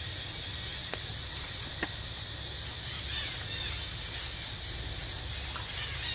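Outdoor ambience: a steady, high insect drone over a low rumble, with two sharp clicks about one and two seconds in. Short, high chirping calls come and go from about halfway.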